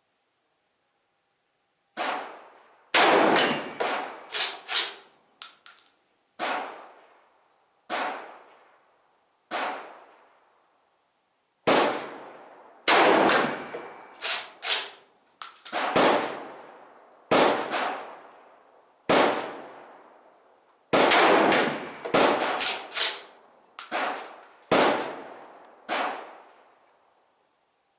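Rifle shots from a Swiss K11 straight-pull carbine, each report ringing out under the range roof and dying away, about two dozen at irregular intervals, some coming in quick clusters. Metallic clangs of hit steel targets mix in with the reports.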